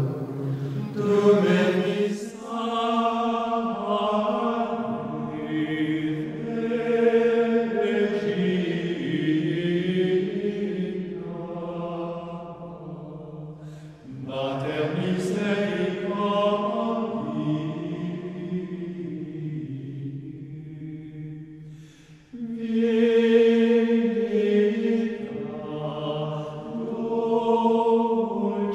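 Sacred vocal chant: a voice holding long notes that step from pitch to pitch, sung in long phrases with a pause about halfway through and another about three-quarters through.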